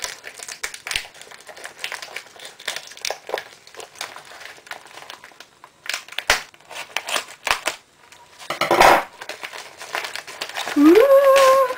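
A padded paper mailing envelope being slit with a knife and pulled open, its paper crinkling and crackling in many short strokes, with a louder burst of noise about nine seconds in. Near the end a voice gives a rising "ooh".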